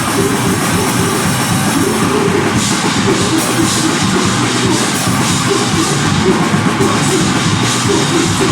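Deathgrind band playing loud and fast through a PA: distorted guitar and bass over a drum kit with crashing cymbals.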